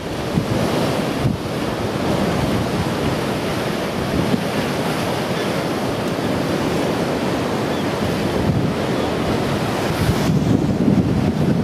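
Heavy storm surf breaking and surging over the beach and seafront in a tidal surge, a steady roar of water. Wind buffets the microphone throughout.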